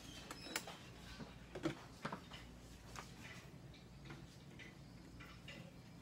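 Scattered light clicks and taps of a hand tool being picked up and handled against the opened microwave oven's metal chassis and parts, with a sharper knock about a second and a half in.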